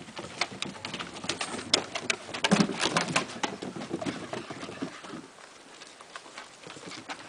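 Airedale terrier puppies scampering on wooden deck boards: quick, irregular clicks and taps of claws and paws, busiest in the first few seconds and thinning out after about five seconds.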